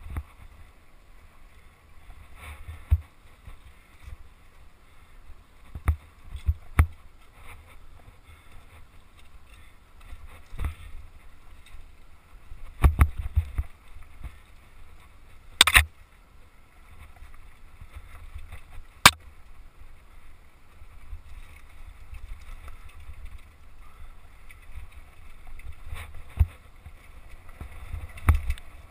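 Mountain bike descending a rocky dirt trail at speed: a steady low wind rumble on the microphone, broken by sharp knocks and clatter as the bike hits rocks and bumps, the loudest near the middle.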